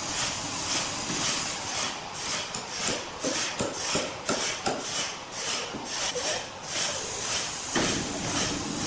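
Rhythmic rasping strokes, about two and a half a second, over a steady noisy background, dying away after the middle.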